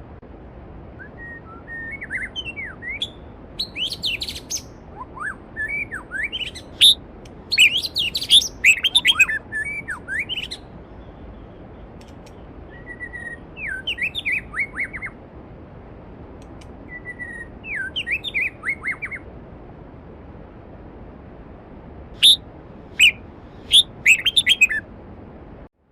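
Songbirds singing in phrases of quick chirps, trills and sweeping whistles, coming in several bursts with short pauses and a few sharp, loud notes near the end, over the steady rush of a mountain stream.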